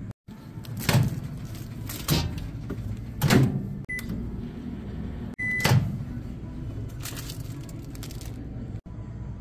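Microwave oven keypad beeping: a short beep about four seconds in, as the start button is pressed, and a longer beep about a second later. Louder handling noises of rustling and knocking come and go around the beeps.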